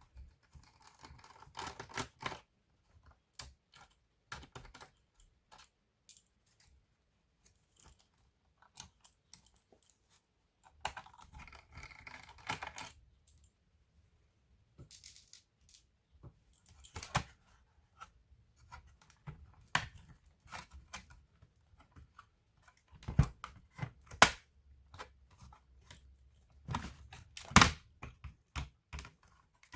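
Hand work on a laptop's plastic case and parts: scattered clicks and taps with short scraping stretches, and a few sharper knocks near the end.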